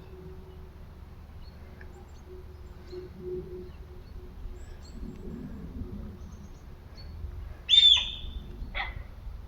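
Deer calling: one short, loud, high-pitched squealing call about three quarters of the way through, then a second shorter call about a second later.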